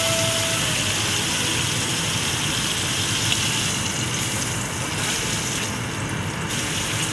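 Ribeye steak sizzling steadily as it sears in hot oil in a frying pan, the steak held on its edge with tongs so its fat cap renders against the pan.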